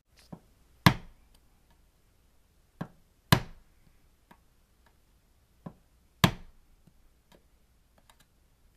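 Hammer striking a screwdriver's handle, driving the blade into the thin sheet-metal lid of a sealed surplus ammunition spam can to cut it open. There are three hard blows about every three seconds, each after a lighter tap, and a few faint taps near the end.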